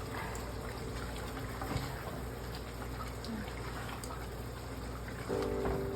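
Chicken curry simmering and bubbling in the pot, with light scrapes and taps of a spoon as the meat is stirred. A steady humming tone comes in near the end.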